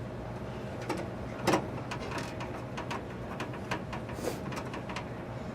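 Scattered light clicks and taps of computer hardware being handled and screwed in inside a desktop PC case, with one louder knock about a second and a half in, over a low steady hum.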